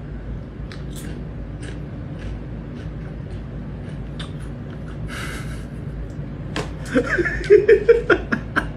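Kitten moving about and scrabbling in pellet cat litter in a plastic litter box: scattered light clicks and a short scratching hiss about five seconds in, then a run of louder short sounds near the end.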